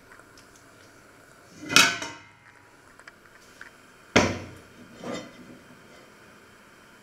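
Metal clanks from handling a pot on an oven's wire rack. There is a loud clank about two seconds in, another about four seconds in and a lighter one a second after that, each ringing out briefly.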